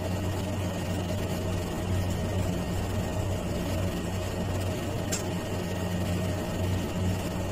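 Steady low mechanical hum throughout, with a single sharp click about five seconds in.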